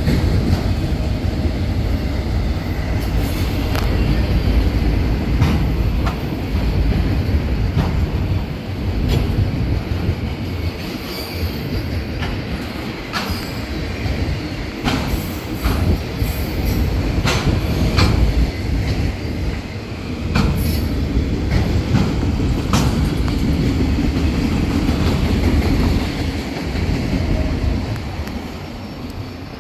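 Union Pacific freight train rolling past: a steady low rumble of the cars, with repeated clanks and clicks of wheels on the rail joints and occasional faint wheel squeal. The sound dies away near the end as the train moves off.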